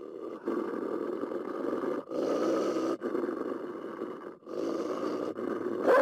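Rough vocal sounds from a wild canine, the coyote-and-wolf kind, coming in spells of one to two seconds with short breaks between them and loudest near the end.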